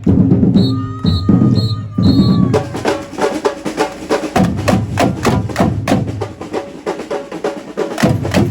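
Live drum band playing a fast, dense rhythm. Four short high tones sound in the first two seconds before the drumming fills in.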